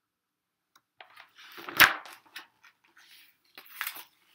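A hardcover picture book being handled and its pages turned: paper rustling and flapping, with one sharp, loud thump about two seconds in.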